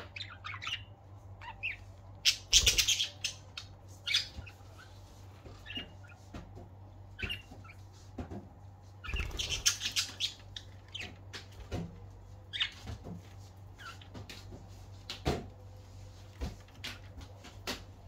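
Pet budgerigars giving scattered short chirps and squawks while climbing on a hanging toy, with two louder flurries of activity, about two and a half seconds in and again around nine to ten seconds.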